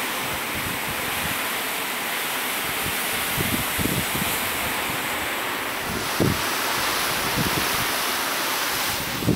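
Staubbach Falls' spray and heavy rain coming down together as a steady rushing hiss. From about three seconds in, a few low thumps hit the microphone.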